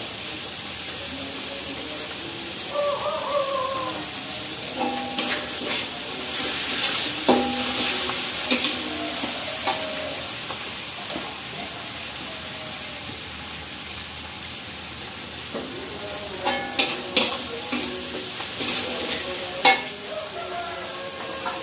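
Green chillies frying in hot oil in a wok, a steady sizzle throughout. A metal spatula scrapes and clinks against the wok in two spells of stirring, about five seconds in and again about sixteen seconds in.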